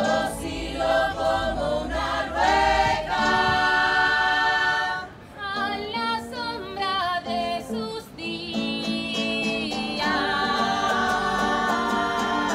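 A group of women singing together in Spanish, mostly unaccompanied, with an acoustic guitar strumming in near the end.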